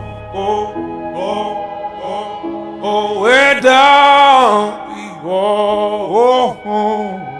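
Background music: a song with a voice singing long notes that bend and glide in pitch, loudest about three to four and a half seconds in.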